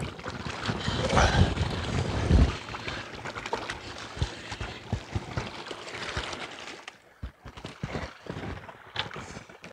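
Handling noise while a hooked hairtail is reeled in and landed. For the first couple of seconds there is rumbling wind and rustle on the microphone, then a scatter of light, irregular clicks and taps.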